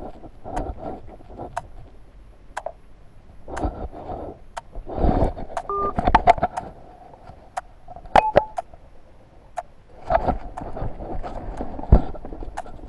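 Irregular clicks, taps and rubbing thumps of handling noise from a wrist-worn recording watch moving with the arm, with two short phone keypad beeps around the middle.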